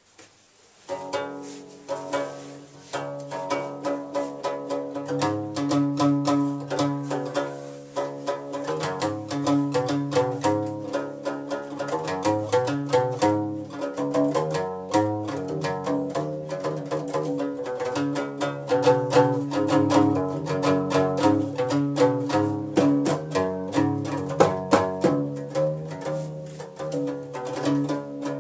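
Guembri, the skin-topped three-string bass lute of Gnawa music, played solo: a steady, rhythmic pattern of low plucked notes, starting about a second in.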